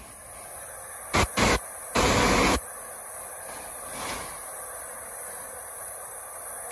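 Class 387 Electrostar electric train running past at the platform, a steady hiss of running noise. About a second in come two short, loud bursts of hiss, then a longer half-second one.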